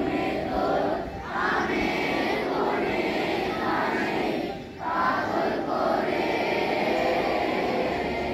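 A large crowd of schoolchildren's voices together in unison, in long phrases broken by brief pauses about a second and nearly five seconds in.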